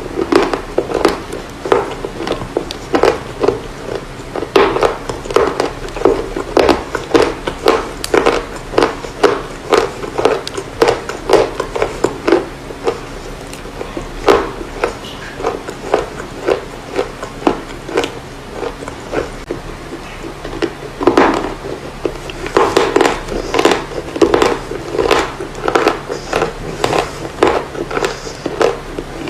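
Close-miked crunching of pieces of chalk and baked clay being bitten and chewed: crisp, irregular crunches several times a second, with a couple of short pauses in the middle and one especially loud crunch past the two-thirds mark.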